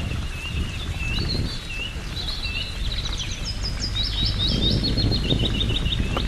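Small songbirds chirping and singing, short high notes overlapping, with a quick run of repeated notes in the second half. A steady low rumble runs underneath.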